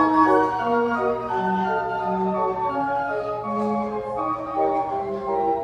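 Carousel band organ playing a tune, organ-pipe notes with bell-like glockenspiel tones over a steady low bass note.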